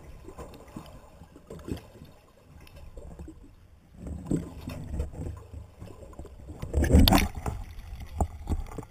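Muffled water sounds heard through a submerged camera: gurgling and sloshing with scattered knocks. About seven seconds in comes a louder burst of splashing as the camera breaks the surface.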